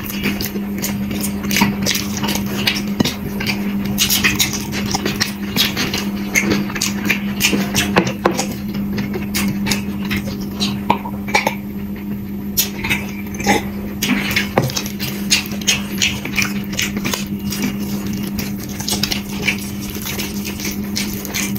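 Close-up eating sounds from a meal of curry and rice: many short clicks and smacks of chewing and of dishes being touched, over a steady low hum.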